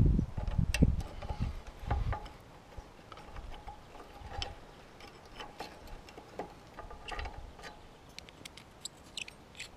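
Small irregular clicks and taps of hand tools on metal as a bolted-on hydraulic pump is being undone, with a few heavier knocks and handling thumps in the first two seconds.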